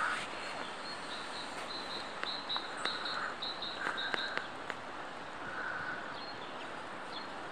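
Woodland birds calling: a small bird repeats short, high chirps, with a few fainter crow caws now and then and some light clicks.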